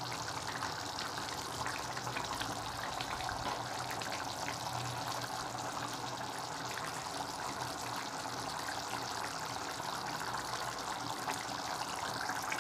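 Thick curry gravy boiling hard in a steel pot: a steady bubbling with many small pops.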